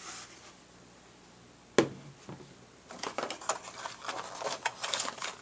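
Handling noise from accessories being picked up and put down: one sharp knock a little under two seconds in, then a quick run of small clicks and rustles.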